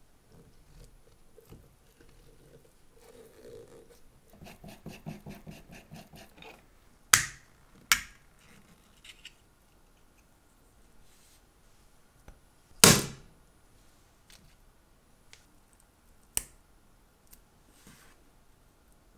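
Watch-bench work on a wrecked Rolex Milgauss case with a shattered crystal, a pointed steel tool pressing at the crystal's edge: a quick run of small ticks, then four sharp snaps, the loudest about two-thirds of the way through.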